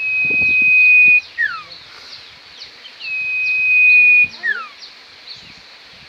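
Caged common iora (cipau) singing: a long, steady high whistle of about a second that ends in a short falling note, given twice about three seconds apart.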